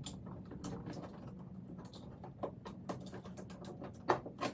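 Scattered clicks and taps of a replacement outside door handle's lever being worked onto its linkage rod in an SUV door, the loudest about four seconds in, over a low steady hum.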